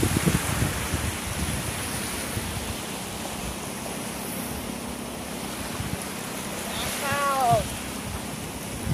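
Small waves washing onto a sandy beach, with wind rumbling on the microphone. About seven seconds in, a short pitched cry, perhaps a voice, falls in pitch for about half a second.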